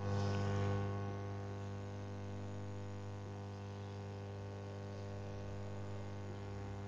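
Steady electrical mains hum: a low buzz with a stack of even overtones, a little louder in the first second.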